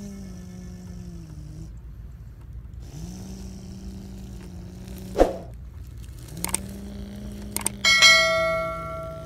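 Electric motor and gearbox of a radio-controlled model dump truck whining at a steady pitch. The whine drops out after about a second and a half, then spins back up twice, with a sharp clack about five seconds in. Near the end a loud click and bell-like ding, a subscribe-button sound effect, rings out and fades.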